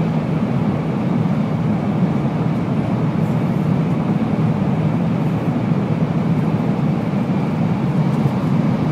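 Steady rumble and rush of a Shinkansen bullet train, heard from inside the passenger car while it runs.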